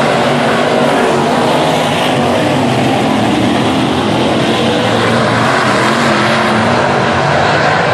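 A field of dirt late model race cars running together around the track, their V8 engines loud and continuous, with several engine notes overlapping and rising and falling.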